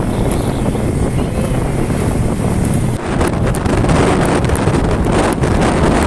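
Wind buffeting the microphone, a steady low rumbling rush, with a few short crackles from about halfway through.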